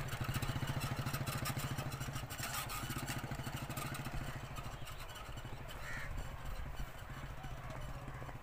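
Small motorcycle engine running with an even, rapid firing beat, fading as the bike rides away down a dirt track.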